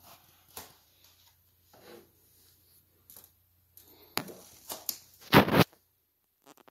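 Handling noise: scattered clicks and rubbing of a phone moved about against the plastic wall of an insect enclosure, with one louder scrape about five seconds in.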